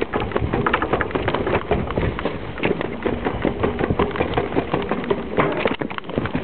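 Rapid footsteps of a person running down a steep flight of stairs: a quick, uneven run of thuds and knocks on the treads.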